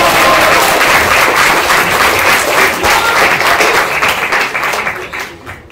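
Audience applauding: a loud, dense patter of many hands clapping that dies away near the end.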